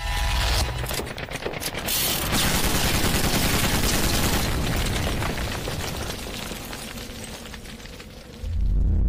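Intro sound effect of a gatling-style machine gun firing rapidly, with a dense noisy clatter of impacts that slowly fades. A deep low boom comes in about eight and a half seconds in.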